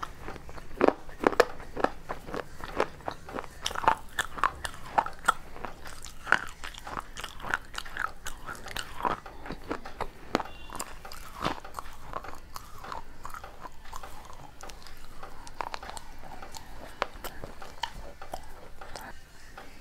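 Close-up crunching and chewing of pieces of baked clay pot, with many sharp, irregular cracks as the fired clay is bitten and ground between the teeth.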